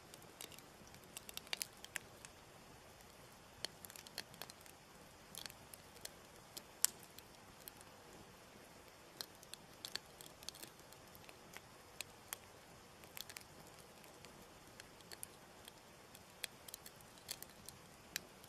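Faint campfire crackling: scattered, irregular pops and snaps over a low hiss, with one louder snap about seven seconds in.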